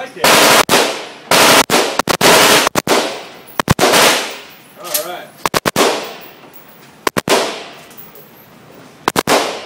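Gunshots in an indoor shooting range: about a dozen sharp single shots at irregular intervals, some in quick pairs, each echoing off the range walls.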